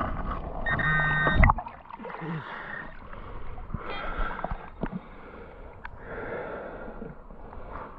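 Garrett metal detector sounding a steady buzzing target tone for about a second, signalling a metal target underfoot. After that comes river water rushing, with a few sharp clicks and knocks.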